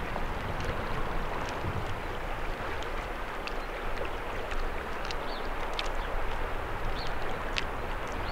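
Steady rush of river current, dotted with small splashes and drips as a steelhead is handled in a landing net in the shallow water.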